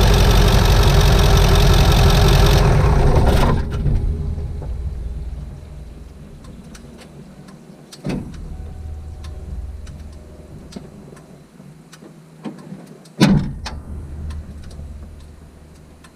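1997 Ford F-250's 7.3-litre Powerstroke turbo-diesel V8 running, then shut off about three and a half seconds in and running down to a stop. Afterwards there are faint small clicks, a knock about eight seconds in, and a loud thump about thirteen seconds in.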